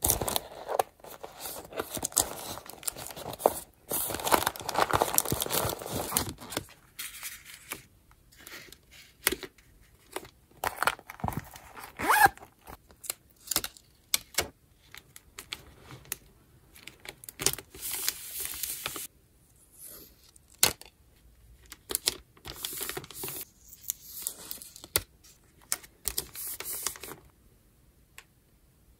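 Close-up rustling, crinkling and tearing of paper stickers and a clear plastic pouch as collage materials are handled and peeled, with many short clicks between. The handling is densest in the first several seconds and thins out near the end.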